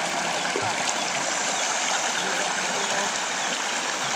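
Shallow river running over rocks, a steady rush of flowing water.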